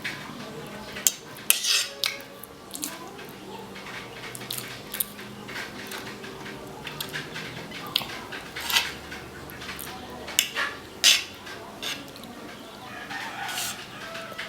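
Cutlery clinking and scraping on a plate while eating, heard as a string of sharp, irregular clicks with mouth sounds of eating between them.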